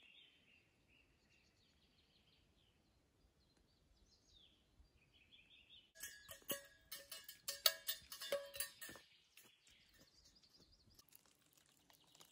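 Faint bird calls in the forest, then about three seconds of rapid clinking and rattling that rings slightly, from about halfway through.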